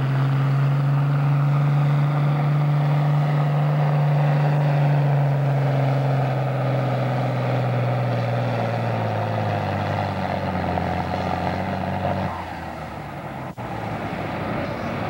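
John Deere farm stock tractor's diesel engine at full throttle hauling a weight-transfer sled, its pitch sagging slowly as the sled's load builds and the engine lugs down. About twelve seconds in it is throttled back sharply as the pull ends and the tractor stops.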